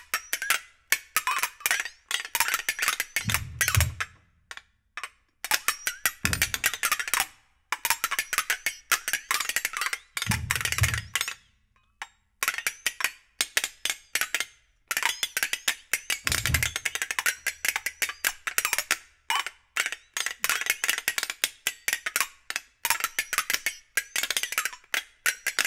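Two flexatones played as fast, accented clicking and rattling rhythms, the beaters striking the steel blades in dense runs broken by short pauses. A few low thuds sound in between, from the piano pedal part.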